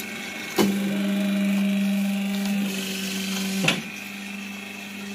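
Paper dona and plate-making press machine working through a pressing cycle: a clunk about half a second in, then a steady motor hum for about three seconds, another clunk, and quieter running after it.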